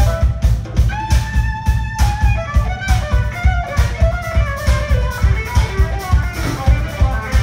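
A jazz-fusion band playing live, heard from the audience: a drum kit and heavy bass keep a steady beat under a lead melody of held and sliding notes.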